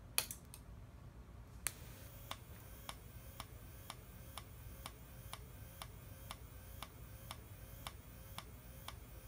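A Whelen HDA-DF-14 strobe power supply firing a strobe flash tube, each flash a faint sharp tick, about two a second, starting a little over a second and a half in after a single louder click near the start. The steady flashing shows the recapped supply is working again.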